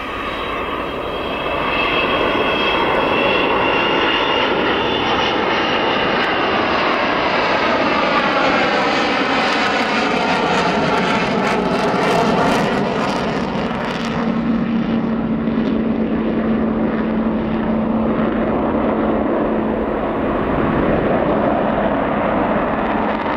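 Avro Vulcan bomber XH558 making a low flyby, its four Rolls-Royce Olympus turbojets growing loud about two seconds in. Their pitch falls as the aircraft passes, and the jet noise stays loud after it goes by.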